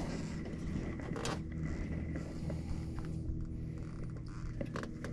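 Handling noises from someone moving through a sailboat's cockpit: canvas rustling, a few short knocks and creaks as they step and brush past fittings, over a low steady hum.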